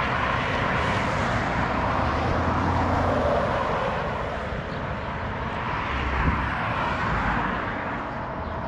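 Road traffic passing on a highway: a steady rush of tyre and engine noise with a low rumble underneath, swelling and easing slowly.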